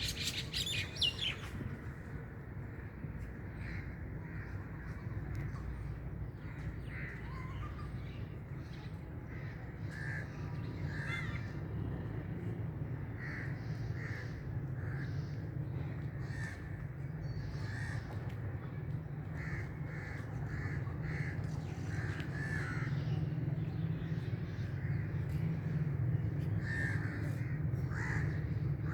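Crows cawing, many short calls scattered throughout, over a steady low rumble.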